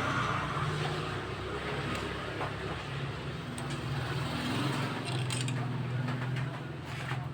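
A motor vehicle engine running steadily with a low hum that shifts slightly in pitch, with a few light clicks.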